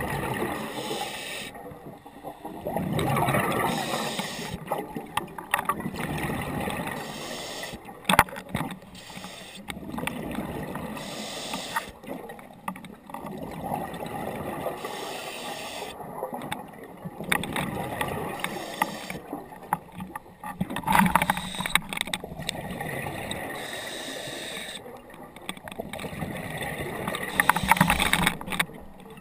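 Scuba diver breathing through a regulator underwater: hissing inhales alternate with bubbling, gurgling exhales, in swells that come and go every few seconds.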